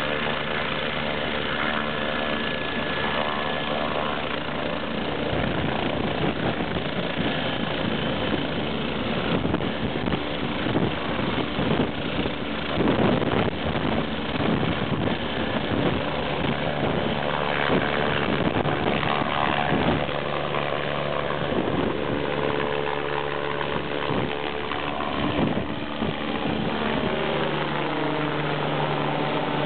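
Twin-turbine medical helicopter taking off: turbine whine and rotor running steadily at first, then growing louder about five seconds in as the rotor takes up power, with a rapid rotor beat through lift-off and the climb. Pitch slides near the end as it flies away.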